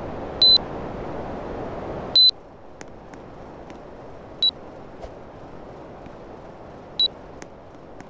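Air conditioner beeping in answer to commands: two loud, high electronic beeps, and at the second, about two seconds in, the steady rush of its fan cuts off. Fainter short beeps follow about four and seven seconds in, with light clicks between.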